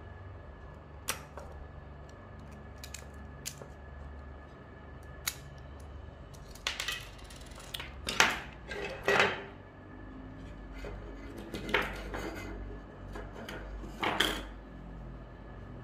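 Clicks and clatter of small hard parts being taken apart by hand: a screwdriver prying at the clear plastic roller frame of a BV20 note acceptor, with metal pins, rubber rollers and the screwdriver set down on a wooden table. The loudest clatters come around the middle and again near the end.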